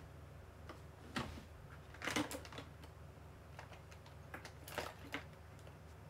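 Scattered handling noise close to the microphone: a few clicks and short rustles, loudest about two seconds in.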